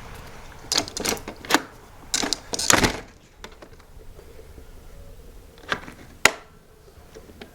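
Newly installed AmazonBasics deadbolt being locked by hand with its thumbturn, unpowered: a run of clicks and metal scraping in the first three seconds as the bolt slides out, then a single sharp click about six seconds in. The bolt is binding a little in the strike, "kind of tight there."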